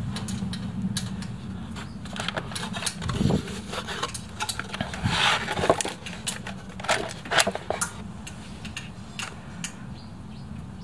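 Clicks and knocks of a steel mortise door lock being handled and tipped up in its cardboard box, metal tapping on metal and card, over a steady low hum.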